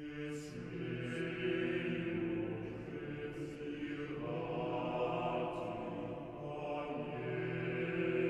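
Slow background music of sustained chanted voices, swelling in over the first second and holding long notes.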